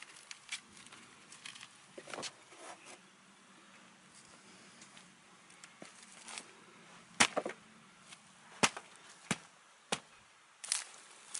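Dry sticks and pieces of bark knocking and snapping as they are handled and set down on the ground, with crackling of dry straw. The loudest knocks come as four sharp hits about seven to ten seconds in.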